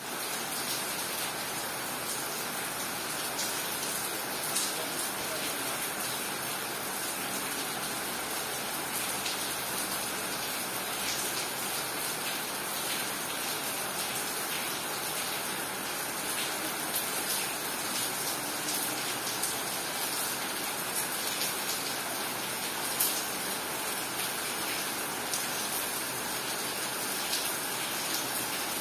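Steady rain falling, with scattered sharper ticks of drops striking a nearby surface.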